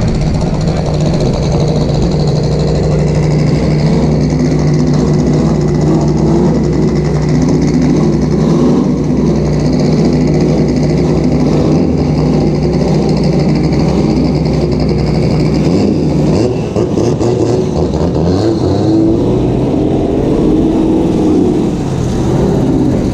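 BMW E30 drift car's M20 straight-six engine running steadily at low revs, loud and close, as the car creeps along at walking pace.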